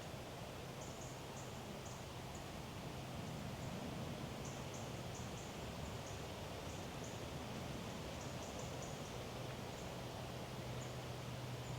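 Quiet woodland ambience: a steady low hum under a soft haze, with very short, high-pitched chirps coming in little clusters every second or so.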